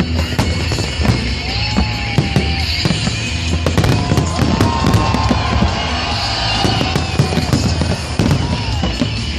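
Fireworks display: a dense run of bangs and crackling reports, with several whistling glides that rise and fall, over music playing along with the show.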